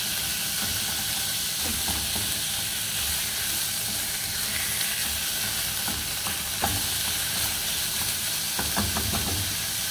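Minced beef and onions sizzling in oil in a saucepan while a spatula stirs them, scraping and knocking against the pan now and then. The loudest knock comes about two-thirds of the way in, with a few more near the end.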